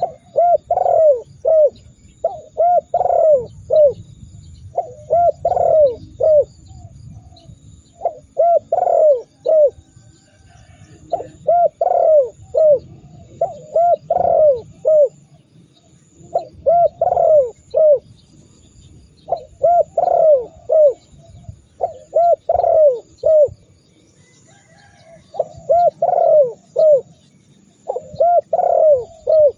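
Spotted dove (tekukur) cooing: repeated phrases of three to five rolling coos, a new phrase about every two to three seconds.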